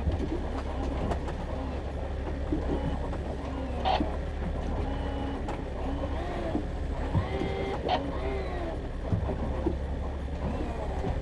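Fishing boat's motor running steadily with a low hum, with a couple of sharp knocks from gear being handled about four and eight seconds in.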